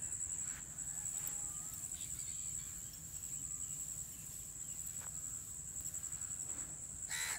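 Steady high-pitched chirring of crickets. A crow caws once near the end.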